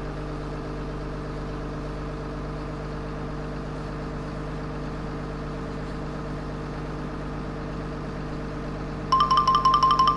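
A toy truck's engine sound effect: a steady, even, engine-like hum held at one pitch. About nine seconds in, a rapid, high, bell-like chiming trill joins it.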